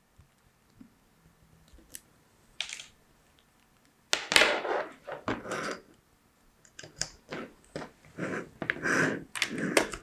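Handling noise of a USB cable being uncoiled and its plug pushed into a small microcontroller board: irregular rustling, scraping and clicks, mostly from about four seconds in.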